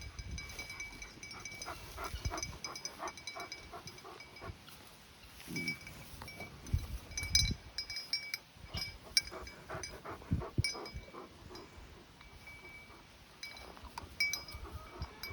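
Dogs chewing and gnawing on bones: an irregular run of clicks and cracks with a few louder low knocks, busiest in the middle.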